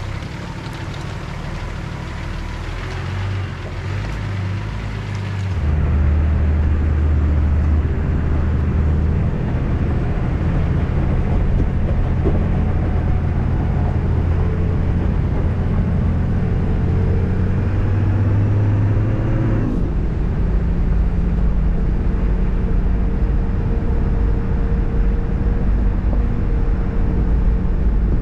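Shallow river rushing over rocks, with a four-wheel-drive's engine running beside it. About five and a half seconds in this gives way to a 4WD's engine pulling steadily along a gravel track. Around twenty seconds in, the engine note sweeps down quickly and then runs on at a new steady pitch.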